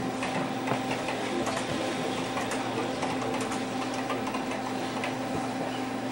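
Quick keystrokes on a Commodore VIC-20's mechanical keyboard, scattered short clicks over a steady hum.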